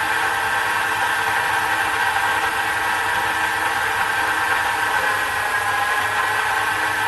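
Sherline mini metal lathe running steadily under motor and belt drive while taking a turning cut, a constant whine with a low hum.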